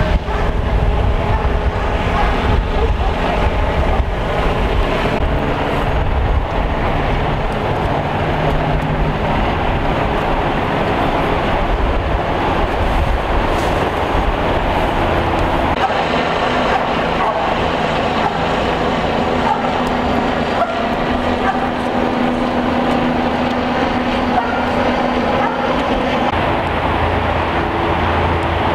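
Steady vehicle engine and traffic rumble with no breaks; the deepest part of the rumble eases about halfway through.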